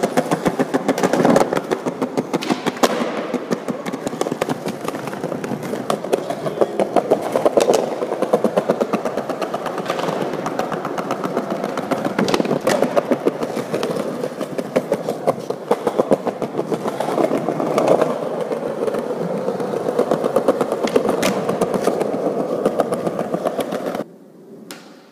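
Skateboard wheels rolling over rough pavement close to the camera, a loud continuous rumble with occasional sharp clacks of the board, cutting off near the end.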